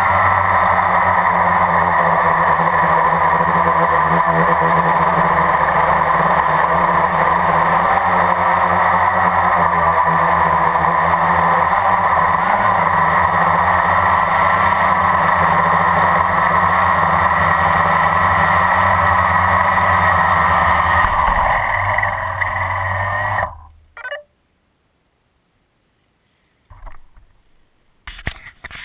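350 QX quadcopter's electric motors and propellers running, heard from its onboard camera as a steady buzzing whine. About 22 seconds in it winds down and stops, leaving near silence with a few faint knocks near the end.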